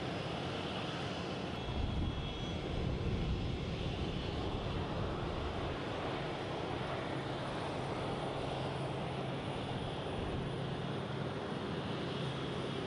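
Boeing RC-135W Rivet Joint's four CFM F108 turbofan engines running at low taxi power: a steady low rumble with a faint high whine.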